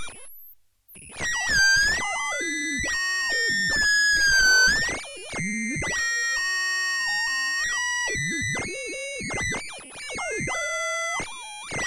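Modular synthesizer tone: a sine wave through a resonant analog low-pass filter into the Plasma Drive distortion module, giving a distorted, harmonic-rich tone. It steps between notes with gliding pitch and filter sweeps, starting after a brief gap about a second in.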